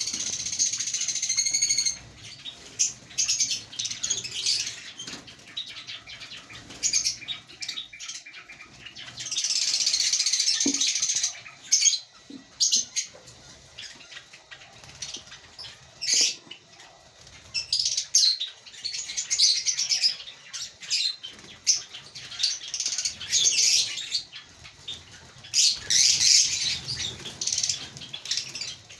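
A colony of African lovebirds chirping and chattering shrilly, in bursts that come and go, with a few long stretches of dense chatter. Short clicks sound in between.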